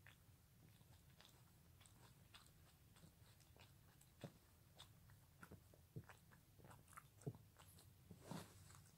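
A Pekingese dog licking its front paw: faint wet smacks and small clicks, a few louder ones in the second half. The owner takes the new paw-licking as a possible sign of returning feeling in its partly paralysed front legs.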